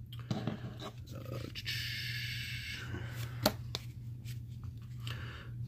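A stack of trading cards being handled and shuffled through: small clicks and a brief rustling scrape of card stock, over a steady low hum.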